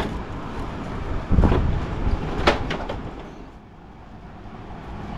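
Plastic front grille of a Nissan Patrol Y62 being unclipped and lifted off: a click, a dull thump about a second and a half in, and a sharp plastic click about a second later.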